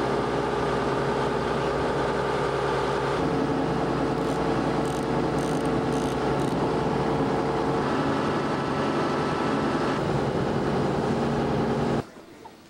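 Fishing boat's engine running steadily under way, its pitch shifting slightly a couple of times before it cuts off suddenly near the end.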